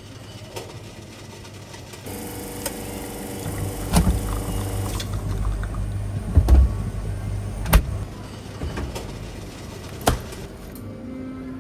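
A small electric kitchen appliance motor hums steadily for about three seconds, with low rumbling thumps and a few sharp clicks and knocks of handling.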